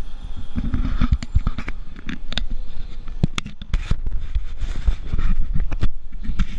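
Wind buffeting the microphone of a handheld action camera on a swinging thrill ride: a constant low rumble with many sharp knocks and rattles.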